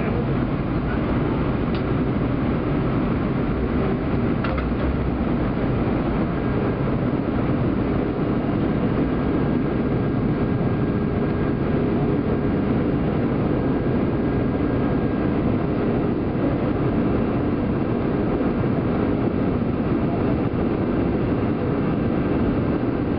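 Steady cabin noise inside an Airbus A320 on its descent: the low rumble of the engines and the airflow past the fuselage, with a faint steady whine over it.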